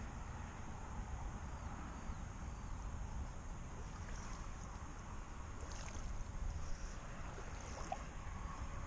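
Steady low rumble of wind buffeting the microphone outdoors, with a faint airy hiss above it.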